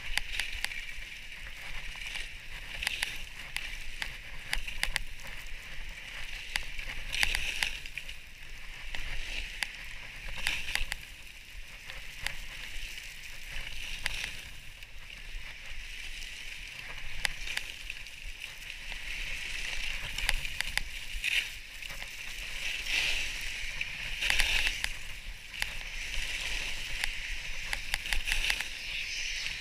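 Skis sliding and scraping over snow through a series of turns: a steady hiss that swells and scrapes with each turn.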